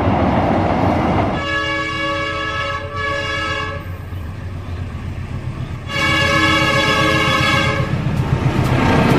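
Approaching diesel locomotive sounding its multi-tone air horn twice: a long blast with a brief break in it, then a blast of about two seconds a few seconds later, over the steady rumble of the engine and train.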